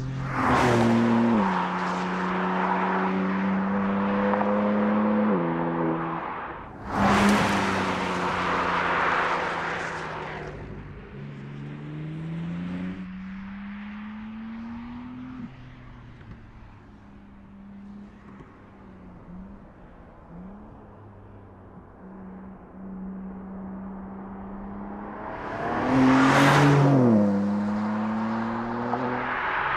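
2021 BMW M3 Competition's twin-turbo inline-six, its exhaust fitted with a particulate filter, driven hard past the listener: three fly-bys, about 0.5 s, 7 s and 26 s in, each a loud rush with the engine note dropping in pitch as the car goes by. In between, the engine note climbs under acceleration and steps down at a gear change, then runs quieter in the distance.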